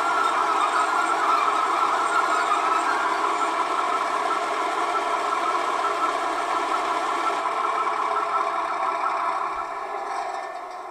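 Simulated diesel engine sound from the model V 160 locomotive's sound decoder, played through its loudspeaker in load-run mode. It runs steadily, then dies away over the last few seconds as the engine sound winds down.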